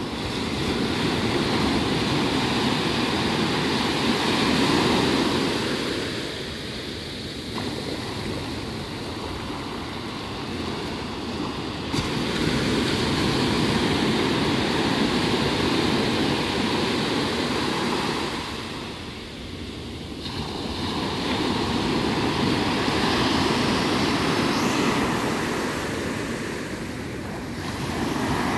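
Sea surf: low waves breaking and washing up the sand, the rush of water swelling and easing in long surges.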